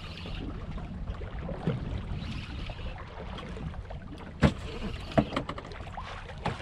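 Steady wind and water noise around a small fishing boat at sea, with two sharp knocks a little past the middle, under a second apart.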